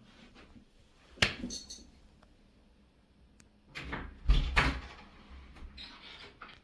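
A sharp click about a second in, then a quick cluster of knocks around four seconds in, the loudest of them near the middle of the cluster.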